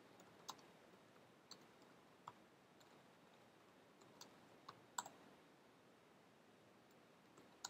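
Near silence with a few faint, scattered computer keyboard keystroke clicks.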